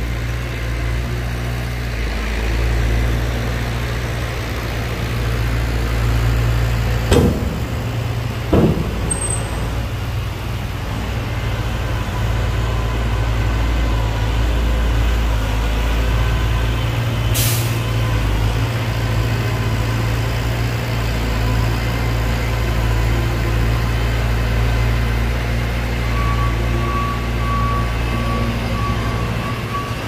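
Heavy diesel engines of earth-moving machinery running steadily under load, with two sharp knocks about seven and eight and a half seconds in and a short hiss of released air, like an air brake, about halfway through.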